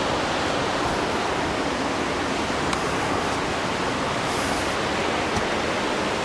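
Lower Jonathan Run Falls rushing in high water: a steady, unbroken noise of falling and churning water.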